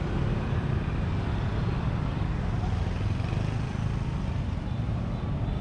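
Steady road traffic noise: a continuous low rumble of passing vehicles, with no single event standing out.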